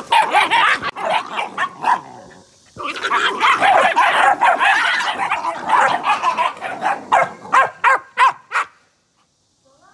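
Young dogs barking and yipping as they scuffle through a chain-link fence. There is a loud burst at first, a short pause, then a longer bout that ends in a quick run of separate barks and stops about a second before the end.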